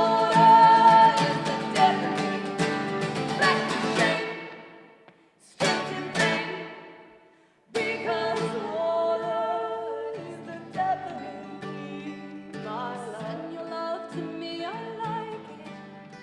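Live acoustic guitar music: strummed chords that stop and ring out to silence about four seconds in, one more chord left to fade, then the playing resumes more quietly about eight seconds in.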